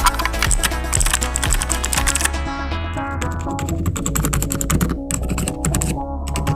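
Rapid typing on a Fantech Atom Pro97 mechanical keyboard fitted with Akko Fairy silent switches: a quick, continuous run of keystrokes. Background music with a heavy bass beat plays throughout.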